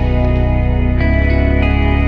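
Instrumental background music: held chords over a steady low bass line, changing chord about a second in.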